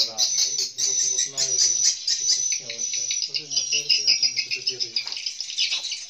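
Swiftlets twittering: a dense, unbroken high chatter of short chirps and clicks filling a swiftlet house.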